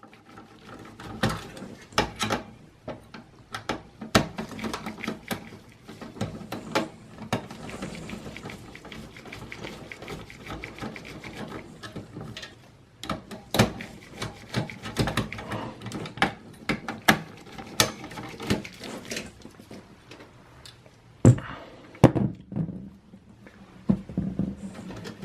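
Phillips screwdriver loosening the four screws of the CPU heatsink in a Dell Precision tower: a long run of small clicks and taps, with two louder knocks near the end.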